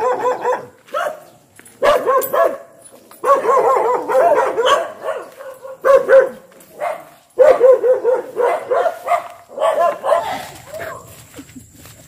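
A dog barking and yelping in quick runs of high, pitch-bending yelps, with short breaks between the runs, fading out near the end.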